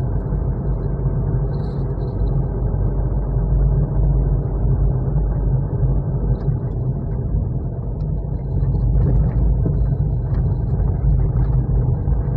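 Steady low rumble of a Honda car driving along, engine and road noise heard from inside the cabin.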